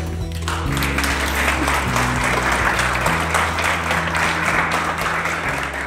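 A crowd applauding, starting about half a second in, over background music with steady held low notes.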